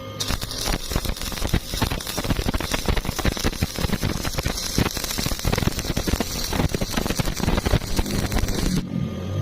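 Electric welding arc crackling steadily on rebar, struck just after the start and broken off suddenly near the end.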